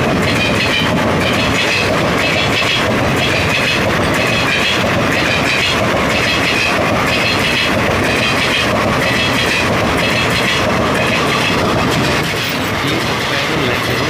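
Indian Railways express passenger coaches passing close by: a steady loud rush of wheels on rail with repeated clicks as the wheels cross rail joints. About twelve seconds in, the sound drops slightly in level.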